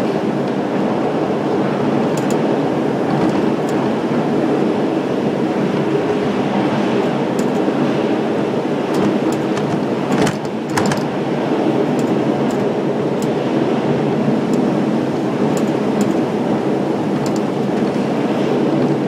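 The St. Louis Gateway Arch tram capsule climbing its track: a steady mechanical running noise with scattered light clicks and a double knock about ten seconds in.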